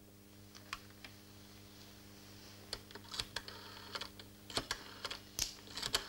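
Scattered light clicks of a rotary telephone being handled and dialled, some coming in short runs, over a faint steady hum.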